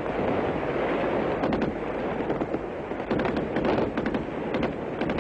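Gunfire in an ambush: a steady rumbling din, with scattered sharp shots starting about a second and a half in and coming more often toward the end.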